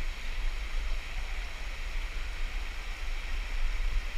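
Steady rush of the Little Colorado River's whitewater pouring over pale rock ledges, a constant hiss over a deep rumble.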